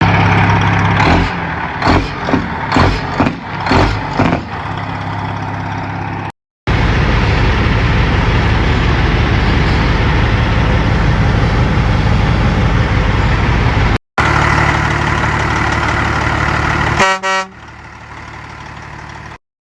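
Freightliner Classic semi truck: a diesel engine running under several short, loud horn blasts, then the engine (jake) brake chattering loudly and steadily for about seven seconds. The engine runs on, a train horn gives one short blast about three seconds before the end, and the engine drops to a quieter idle.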